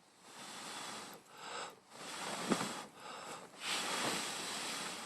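A person blowing in repeated long breaths into a small wood-burning hobo stove to revive a dying fire, each breath a breathy rush with short pauses between.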